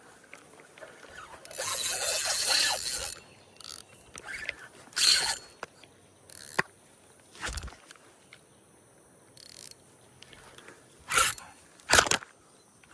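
Mechanical scraping and clicking: one burst of about a second and a half, then several short separate ones.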